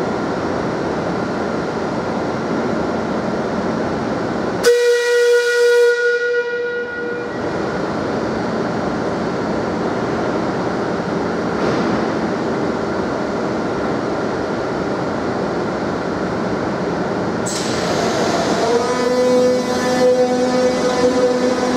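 Madrid Metro Serie 5000 train standing at the platform with a steady rumbling hum. About five seconds in, a held warning tone sounds for roughly two seconds. Near the end the train starts to pull away, and a motor whine and rumble grow louder.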